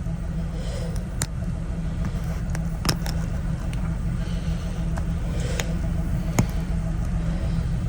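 Air hissing out of a screw puncture in a car tyre, over a steady low rumble, with a few sharp metallic clicks as a tool works the screw out of the tread.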